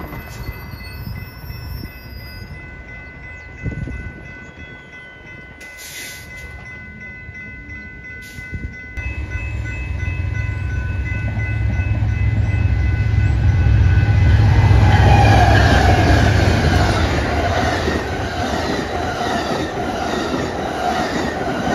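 Railroad crossing warning bells ring steadily for the first several seconds. Then the Amtrak California Zephyr passes at speed: the diesel locomotive's low rumble swells to a peak, and the bi-level passenger cars roll by with a rhythmic clickety-clack of wheels over the rail joints.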